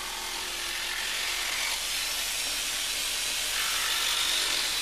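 DeWalt jigsaw cutting lengthways along a laminate floorboard: the steady noise of the blade sawing through the board.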